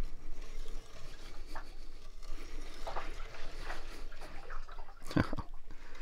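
Water sloshing inside the tub of an Amana front-load washer that is still full of water it failed to drain, in irregular swishes with a few stronger surges near the end.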